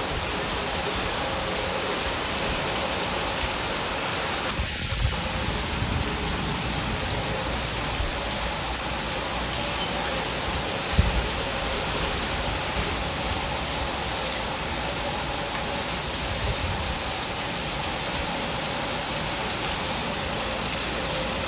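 Heavy rain falling steadily, with a few brief low thumps, the loudest about halfway through.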